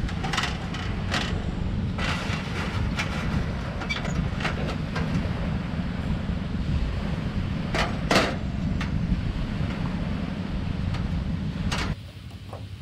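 Wind noise on the microphone, with scattered metal clanks and scrapes from a folding metal portable barbecue pit being opened out and its wire grill grate set on top. The loudest clank comes about eight seconds in. The wind noise drops away suddenly near the end.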